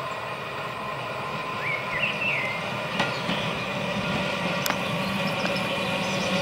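Vintage electric tramcar of the Trieste–Opicina line approaching on its track, its motor hum and wheel noise growing steadily louder. A sharp click about three seconds in and another near five seconds.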